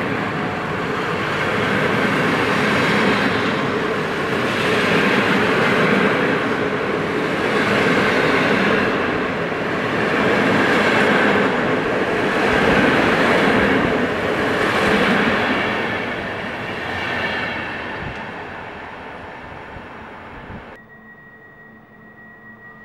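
PKP Intercity passenger coaches rolling past at speed: a steady rumble of wheels on rail that swells every couple of seconds as each coach goes by, then fades as the end of the train passes. About twenty seconds in it drops abruptly to a faint steady hum.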